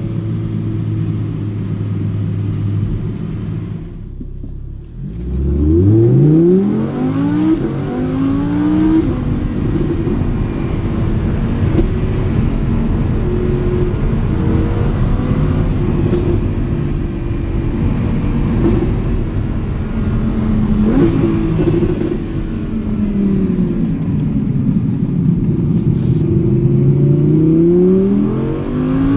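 Audi R8 V10 Plus's 5.2-litre naturally aspirated V10 running under load. After a brief lull about four seconds in, it revs up hard with a steeply rising pitch, then holds a steadier note. Near the end the pitch sinks and climbs again as it accelerates once more.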